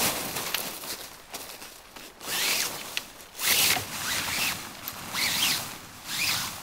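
Nortent Gamme 8 tent fabric rustling as it is pulled and spread out over snow, in a series of short swishes about a second apart.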